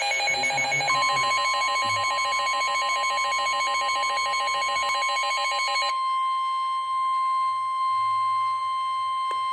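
NOAA Weather Radio warning alarm tone: a steady, loud 1050 Hz tone that begins about a second in and holds. For the first six seconds a second alarm, pulsing rapidly through several tones, sounds over it; it stops about six seconds in, leaving the single tone alone.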